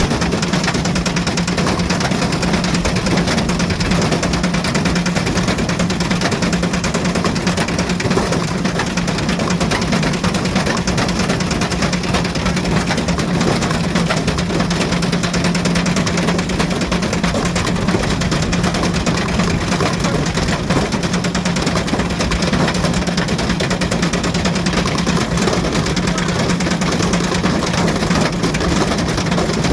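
Ariston Margherita washing machine running with a brick in its drum: a steady motor hum under fast, continuous knocking and rattling, the brick banging round inside the drum.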